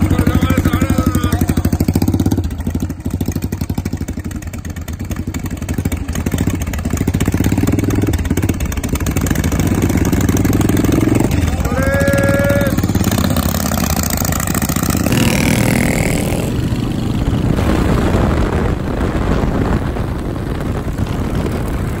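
Custom Yamaha SR single-cylinder motorcycle engines running with a steady, rapid beat of exhaust pulses as the bikes move off. Later the engine is heard from on board a moving motorcycle.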